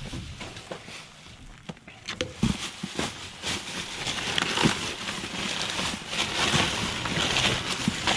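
Rummaging through a dumpster: plastic bags and packaging crinkling and packaged food items knocking together, getting busier and louder from about three seconds in.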